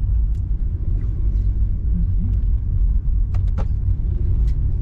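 Steady low rumble of road and engine noise inside a moving car's cabin, with a couple of short clicks a little past the middle.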